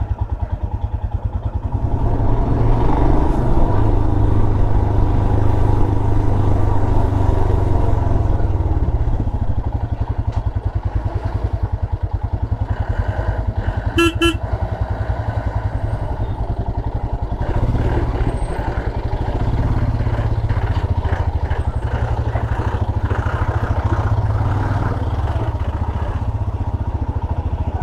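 Motorcycle running steadily while being ridden along a road. A short horn toot sounds about halfway through.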